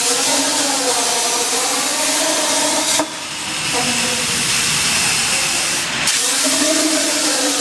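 CNC plasma torch cutting steel pipe: a loud, steady hiss of the arc and air jet with a wavering whine underneath. The sound changes abruptly twice, about three and six seconds in.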